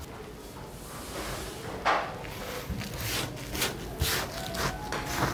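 Hand-rolled green tea leaves rubbed and pressed against a wooden board on a paper-covered drying table: a dry rustling scrape with several sharper knocks. This is the itazuri board-rubbing stage, which draws the last moisture out of the leaves.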